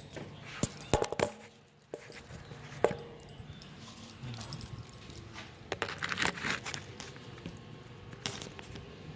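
A few sharp clicks and knocks at irregular intervals, with a denser run of them about six seconds in, over a faint steady low hum.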